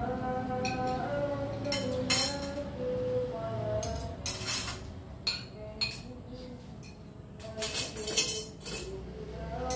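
Metal spoons clinking against plates and bowls as people eat: a scatter of sharp clinks, loudest about two seconds in and again in a cluster around eight seconds. A melody of background music runs underneath.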